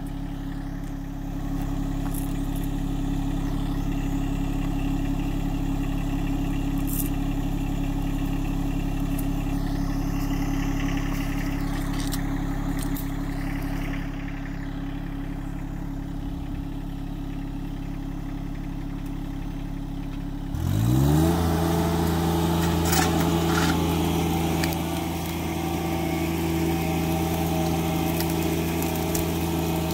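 John Deere 1025R subcompact tractor's three-cylinder diesel engine running at a steady speed, then about two-thirds of the way through it revs up quickly and holds at a higher, louder speed.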